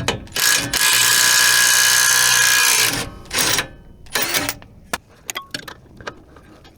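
A cordless power tool runs steadily for about two and a half seconds, backing out a trailing-arm bolt, then gives two short bursts. Light metallic clicks of tools and parts follow.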